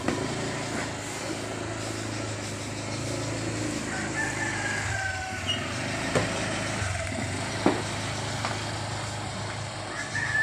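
Two sharp thuds of a basketball, about six and seven and a half seconds in, over a steady low hum. A rooster crows in the background about four seconds in and again at the very end.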